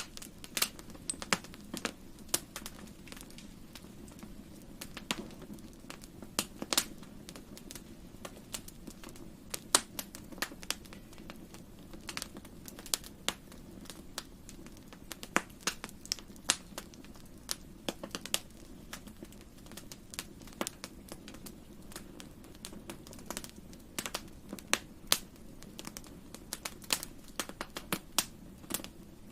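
Wood fire in a fireplace crackling, with irregular sharp pops several times a second over a steady low rumble of the flames.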